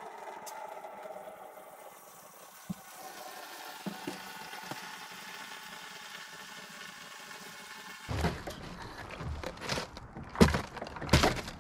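Quiet handling of a plastic snowmobile fuel tank, with a few light knocks. About eight seconds in, louder rustling and several sharp knocks as the tank is tipped and shaken over a cardboard box to drain the gasoline.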